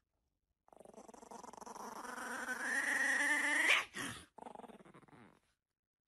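A small puppy growling: one drawn-out growl that rises in pitch and grows louder for about three seconds, breaking off in a sharp high note, then a few fainter short growls.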